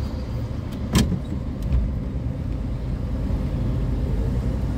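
Cabin sound of a 1972 Chrysler New Yorker with its 440 V8 pulling away slowly: a steady low rumble of engine and road. A single sharp knock comes about a second in, with two fainter clicks just before and after it.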